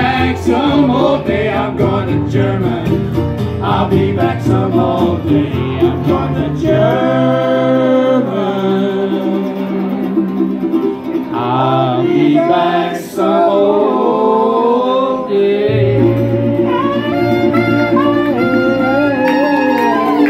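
Live acoustic jug-band blues: a man singing over strummed acoustic guitars and an upright bass, with a clarinet playing the melody near the end.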